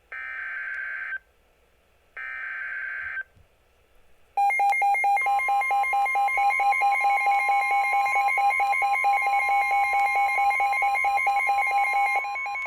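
Emergency Alert System broadcast tones on weather radio. It opens with two short buzzy data bursts (the SAME header), about a second apart. After a short pause, a loud steady alert tone starts about four seconds in, and a second, higher steady tone (the 1050 Hz weather radio warning alarm) joins a second later, signalling a severe thunderstorm warning.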